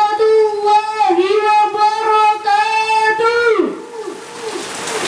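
A young woman's voice singing long held, slowly bending notes through a microphone and PA. The phrase ends with a falling glide, and the rest is a hiss of noise.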